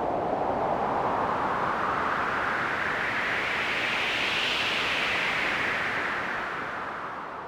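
Synthesized wind from a Korg iMS-20 synthesizer app: filtered noise whose pitch sweeps slowly up and down like a gust, peaking about halfway through and then falling as it fades away near the end.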